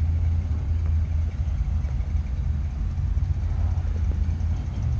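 A car engine running with a steady low rumble.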